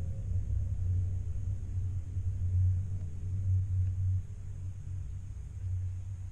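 Deep, low ambient drone of a created atmospheric soundscape, easing a little about four seconds in.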